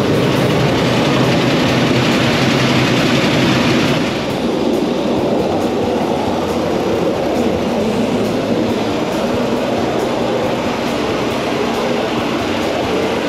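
A sewer jetter's engine and high-pressure water pump running steadily and loudly. About four seconds in, the sound loses its hiss and becomes a lower, duller drone.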